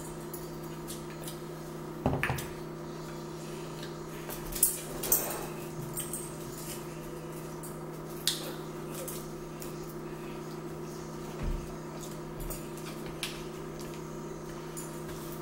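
Scattered clinks and light knocks of plates and a small sauce cup while food is picked up and eaten by hand, a few sharp ones spread through, over a steady hum.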